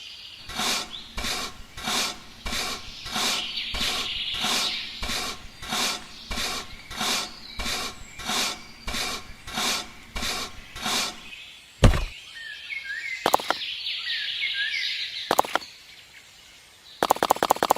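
Rhythmic scraping or rubbing strokes, a little under two a second, for about ten seconds, then a single sharp knock and birds chirping. Near the end a rapid, loud clatter starts suddenly.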